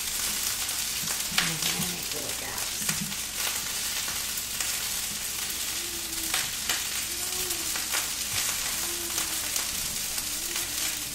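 Cooked rice sizzling steadily as it fries crisp in a metal skillet, stirred and turned with a spatula, whose scraping strokes break in here and there over the sizzle.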